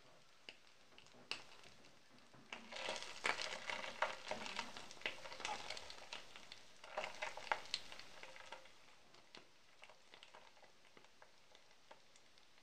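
Sizzling and crackling in a hot pan as a pale block melts and is pushed around with a knife, busiest between about two and a half and eight and a half seconds in, then thinning to a few faint pops.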